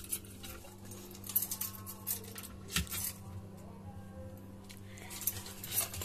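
Keys jangling and clicking in the lock of a small steel home safe as it is unlocked and its door opened: a handful of separate sharp metallic clicks, over a steady low hum.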